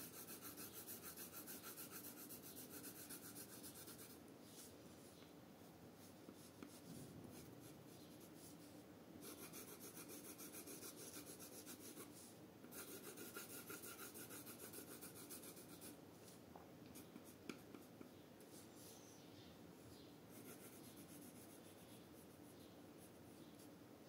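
Colored pencil scratching faintly on paper in rapid back-and-forth shading strokes. The strokes come in stretches of a few seconds, with short pauses between them.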